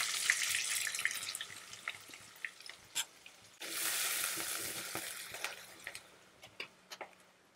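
Chopped onions sizzling in hot oil in a kadai, the hiss slowly dying down. About three and a half seconds in, a spatula stirs them and the sizzle flares up again, then fades, with a few light clicks of the spatula against the pan.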